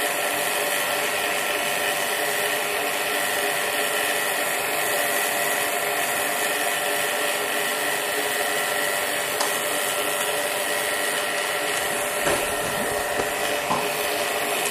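Electric rotary-vane vacuum pump running steadily, evacuating the glass accelerator tube. It is switched off at the very end and stops abruptly.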